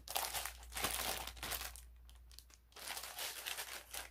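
Packaging being handled and crinkled in bursts of rustling, with a short lull about halfway through.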